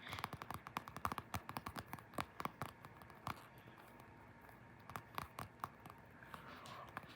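Fingers tapping and scratching on a small Finball toy for an ASMR trigger: quick runs of crisp clicks for the first few seconds, then slower single taps.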